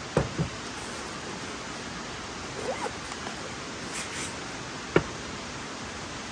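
Small handling sounds of items being taken out and set down at a hard camp storage box: a few light knocks early on and around three seconds in, and one sharp click about five seconds in. Behind them is a steady outdoor rushing noise.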